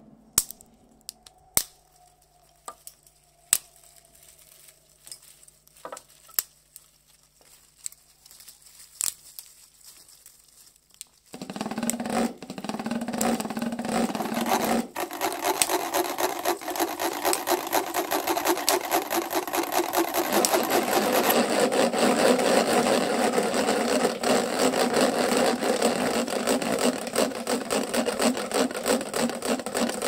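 A few scattered clicks and knocks, then about eleven seconds in a chainsaw starts cutting into wood: a loud, continuous rasping noise with a fast pulse, growing harsher a few seconds later.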